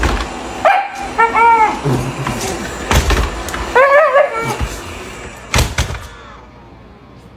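A dog barking and yipping in short bursts, a few arched barks between one and two seconds in and another cluster about four seconds in, with a few sharp thumps between.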